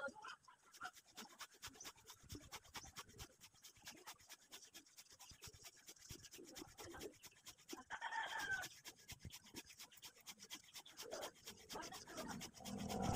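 Faint scratchy rubbing of a felt-tip marker stroked back and forth over a steel knife blade as the blade is inked, with a short squeak about eight seconds in.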